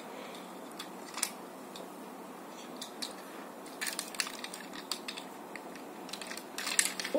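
Hard plastic toy parts clicking and rattling as a transforming Tobot robot's leg pieces are handled and snapped into place: a single click about a second in, then bunches of quick clicks around the middle and near the end.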